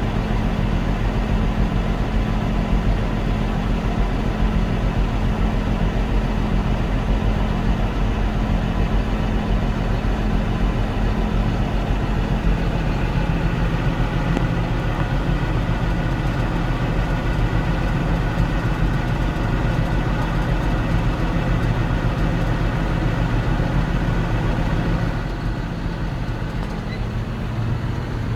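Heavy harvest machinery running steadily: a large diesel engine drones under a dense mechanical rush, easing off slightly near the end.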